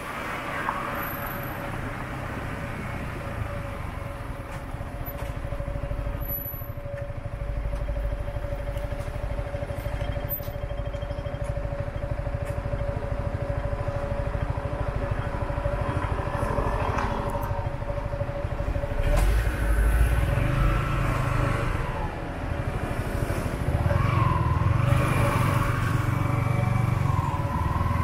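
Motorbike riding through city traffic: a low rumble of engine and road with a steady hum over it, growing louder in the second half.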